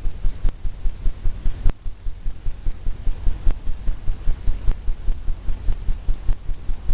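A paintbrush working back and forth on a stretched canvas, laying wet oil paint in a quick, even run of soft, low strokes, about four a second.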